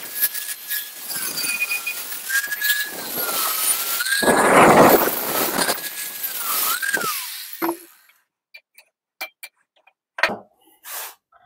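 Angle grinder with a cutting disc cutting a notch into a steel bar: a high motor whine that wavers and dips under load, with the cutting noise loudest about four to five seconds in. About seven seconds in the motor winds down with a falling whine, and a few light clicks and a knock follow.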